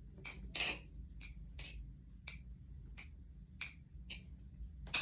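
Balisong (butterfly knife) being flipped: its handles clack against each other and the pins in a string of sharp metallic clicks, about two a second, with one louder click near the end.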